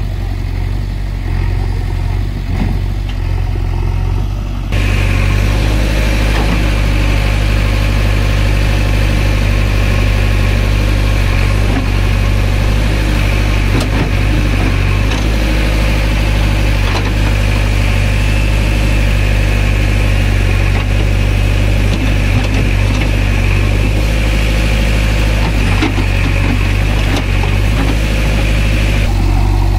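Diesel engines of a backhoe loader and tractors running steadily. About five seconds in, the sound jumps louder with an added high hiss, which cuts off suddenly near the end.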